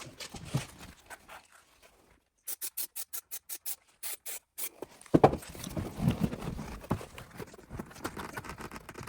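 A quick run of sharp, even clicks, about four a second, then a sudden knock about five seconds in and continuous rustling and knocking of car interior parts being handled.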